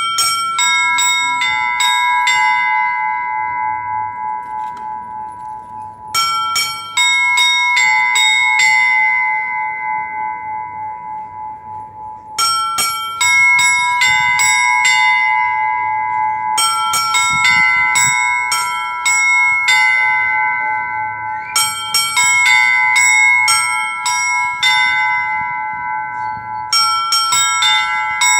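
Russian bell ringing in the Ural style: runs of quick strikes across a set of bells, each run leaving several bell tones ringing on and slowly dying away, with a new run about every five seconds.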